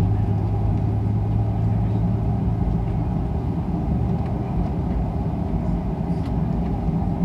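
Steady low drone of a jet airliner's engines heard from inside the passenger cabin while the plane is on the ground, with a low hum that fades about two seconds in.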